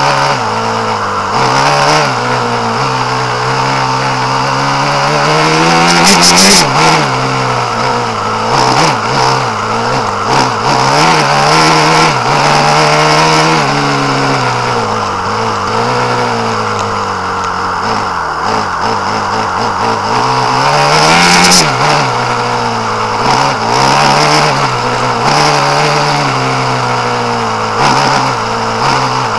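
Small petrol engine of an off-road vehicle driving over rough grass, revving up and down with the throttle. Its pitch climbs to a peak about six seconds in and again about twenty-one seconds in, each time with a brief burst of noise.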